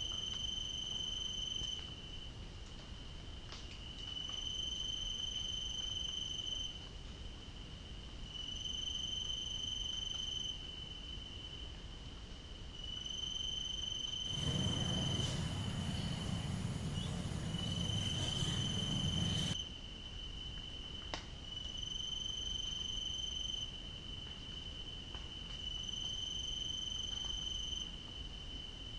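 A cricket trilling at one high, steady pitch, in repeated trills of about two seconds with pauses of a second or two between them. About halfway through, a louder stretch of rushing noise with a low rumble lasts about five seconds.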